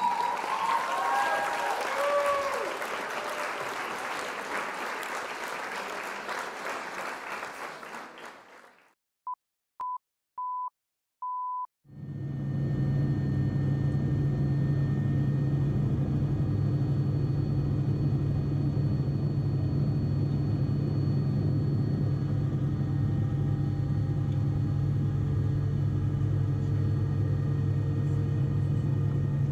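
A noisy hiss with a few brief chirping tones fades out, then four short beeps sound, the last one longest. From about twelve seconds in comes the steady drone of a Bell 407 helicopter's single turboshaft engine and rotor, with a strong low hum.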